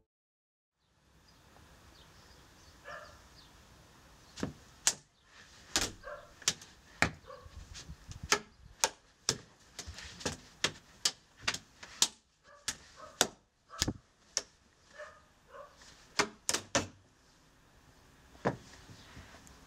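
A series of irregular sharp knocks and taps, roughly two a second, with faint short squeaks between them, then stopping a few seconds before the end.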